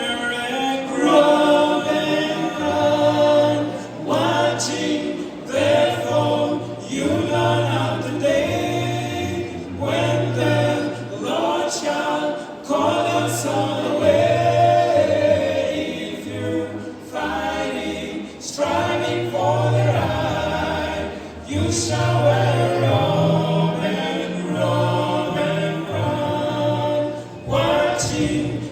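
Choir singing a gospel song in harmony, with held low bass notes under the voices.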